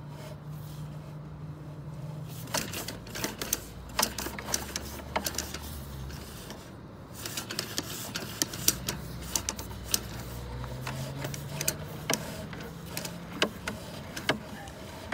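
Irregular clicks and knocks of a sewer inspection camera's push cable being worked back and forth in the line to clear sludge off the camera lens, over a steady low hum.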